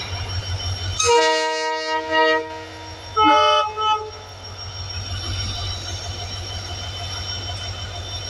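Train horn sounding two blasts, a longer one about a second in and a shorter one about two seconds later, over the steady hum of a diesel engine running.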